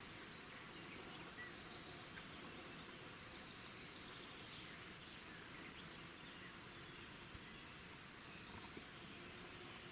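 Faint outdoor nature ambience: a low steady hiss with scattered small, faint chirps.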